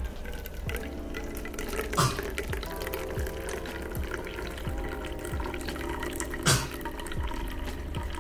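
Coffee pouring in a thin stream from a Bialetti moka pot into a metal mug, a steady trickle of liquid, over background music with a steady beat. Two sharp clicks stand out, about two seconds in and again about six and a half seconds in.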